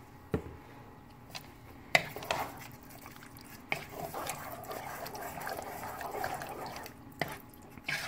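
Wooden spoon stirring thick chicken and gravy in a pot, with a few sharp knocks of the spoon against the pot and a wet, sloppy stirring sound that thickens from about four seconds in to about seven.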